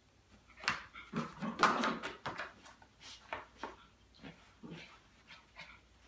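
Small dog making a string of short growling and whimpering noises in play-fighting with a kitten, not a real fight; the loudest cluster comes about a second in, followed by quieter sounds about every half second.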